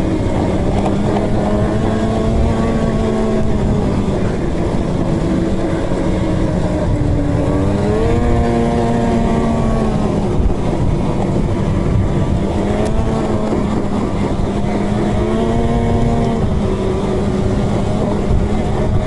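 Two-stroke snowmobile engine running under way at a steady pitch, with the throttle opened up and eased back about eight seconds in and again around fifteen seconds.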